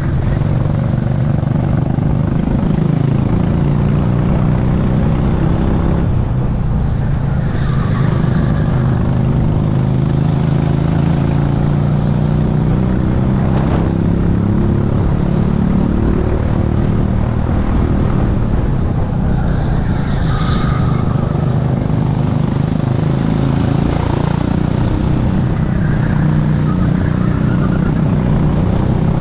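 Racing kart engine at full race pace, heard from a camera on the driver's helmet: its pitch rises and falls over and over as the driver accelerates out of corners and lifts for the next one.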